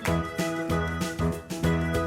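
Background music: a light, upbeat instrumental with a steady beat.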